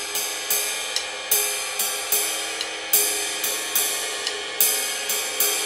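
Drum kit playing a jazz swing beat, led by a steady ride-cymbal pattern of about two and a half strokes a second, each ringing out, with a short hi-hat chick about every second and a half.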